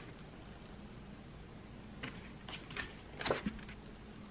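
A few short clicks and knocks of objects being handled, bunched together from about two seconds in, over a faint steady hum.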